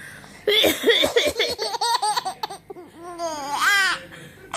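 A baby laughing in a string of quick bursts, then a high-pitched squeal of laughter about three seconds in that rises and falls.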